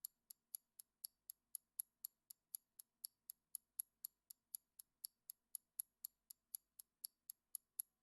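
Quiet clock-ticking sound effect, evenly spaced sharp ticks at about four a second, counting down the time allowed to answer a quiz question.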